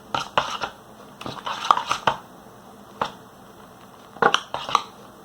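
Hands squishing and kneading fluffy slime made of glue and shaving cream in a bowl, giving sharp wet pops and clicks in short clusters.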